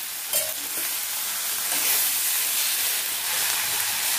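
Beef with fried onions and spices sizzling in hot coconut oil in a small wok as it is stirred, a steady frying hiss. There is a short metallic clink about a third of a second in.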